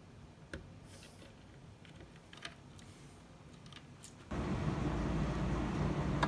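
A few faint clicks of wire terminals being pushed onto the drive's circuit board. About four seconds in, a steady low hum with hiss comes in abruptly and holds, much louder than the clicks.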